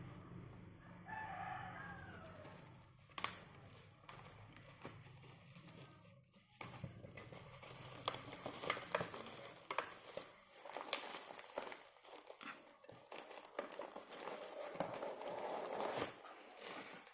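Scattered clicks and rustling of a package being handled, with a rooster crowing once in the background about a second in.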